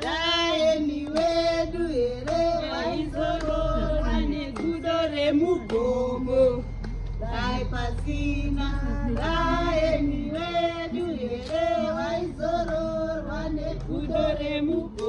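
A group of women singing together in chorus, several voices holding and sliding between long notes.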